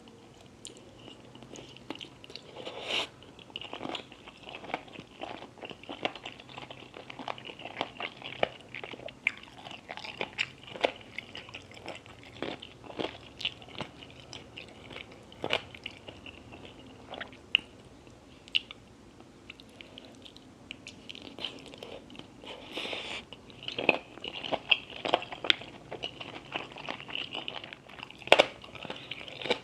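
Close-miked eating sounds: a person chewing and biting food, with many short, sharp crunches. The crunching comes thicker and louder near the end.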